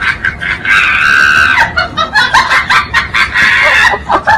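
A shrill scream held for about a second, amid rapid cackling bursts.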